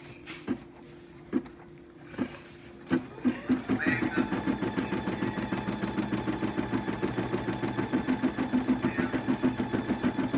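Computerized home embroidery machine starting to stitch: a few single needle strokes about a second apart, then from about three seconds in a fast, steady stitching rhythm with a running hum.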